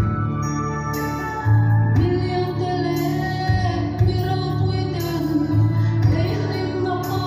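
A woman singing a slow song solo into a microphone over instrumental accompaniment of held chords and a low bass.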